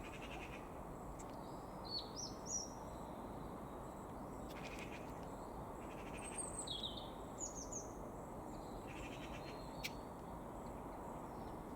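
Birds chirping over a steady background hiss: a few short, sliding calls about two seconds in and again around six to eight seconds, with a single sharp click near the end.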